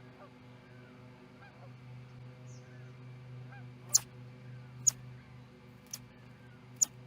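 An osprey sneezing four times in quick succession in the second half, each sneeze a short, sharp burst of breath.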